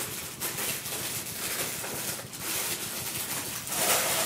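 Packaging rustling and scraping as statue parts are handled and unwrapped: a continuous crackly rustle, louder near the end.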